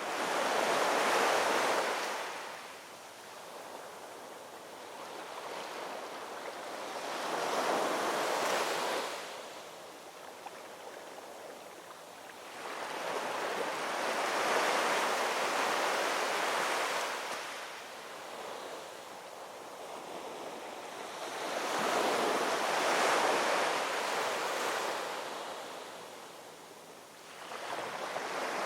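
Ocean waves rolling in and breaking on the shore: a steady wash of surf that swells and fades again about every seven seconds, four times over.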